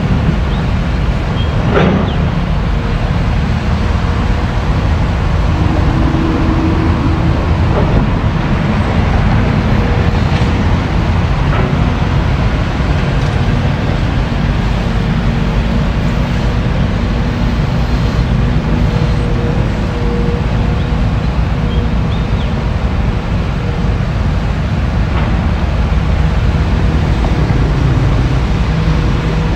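Excavator's diesel engine running steadily, with a faint steady whine and a few sharp knocks.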